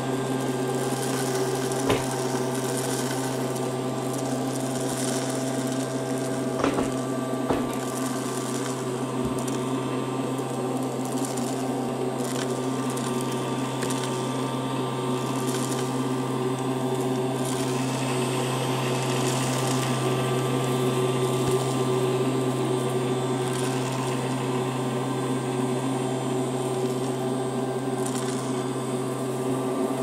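Battery-powered toy Henry vacuum cleaner's small motor running with a steady hum as its floor tool sucks polystyrene beads off carpet. A few sharp clicks in the first several seconds.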